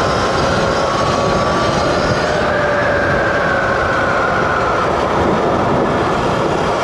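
Wind rushing over the microphone on an electric dirt bike moving at speed, with the 72V Sur-Ron's electric motor whining underneath as two steady tones that drift slowly in pitch.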